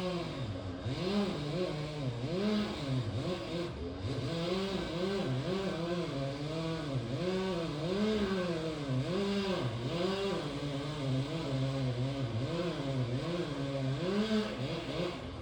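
Chainsaw cutting under load. The engine pitch dips and recovers over and over, roughly every second or less, as the saw bogs in the wood, and it drops away at the very end.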